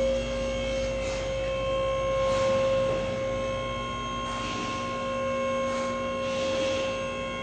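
Steady machine hum with a constant whining tone, unchanging in pitch, from equipment running in a vehicle repair shop.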